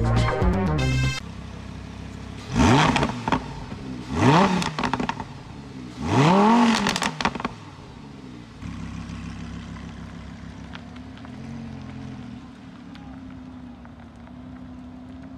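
Lamborghini Huracán LP610-4's 5.2-litre V10 revved three times while standing, each blip rising and falling in pitch, the third the longest. The car then pulls away at low speed with a steady low engine note. Music cuts off about a second in.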